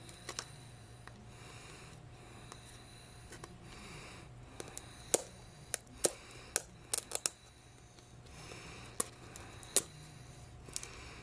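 Fingernails picking and scratching at tight plastic shrink-wrap on a hard plastic capsule toy ball: soft rustling and rubbing with many sharp clicks and taps, most of them bunched in the middle.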